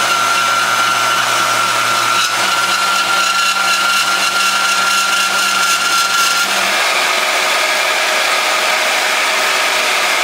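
Harbor Freight portable band saw running steadily under its electric motor. About two-thirds of the way through its tone changes: a high steady whine and the low hum drop out and a brighter sound takes over.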